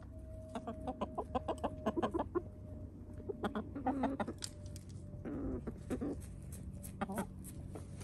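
Hens clucking softly: a quick run of short clucks in the first couple of seconds, then scattered clucks and low calls. These are the contented sounds of chickens dust bathing.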